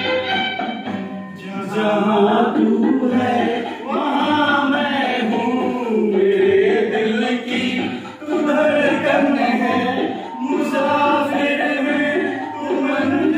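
Men singing a song together into microphones, with long held and bending notes.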